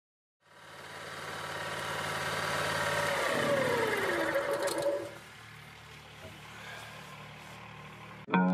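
Small key-start petrol engine running, fading in; around the middle its pitch falls and it settles to a quieter idle.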